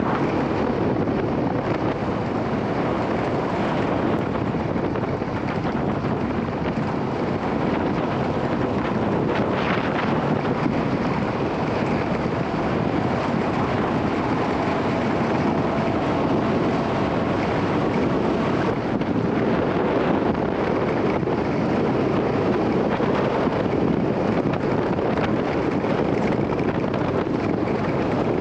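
Wind buffeting the microphone over a steadily running engine while riding in an open UTV off-road.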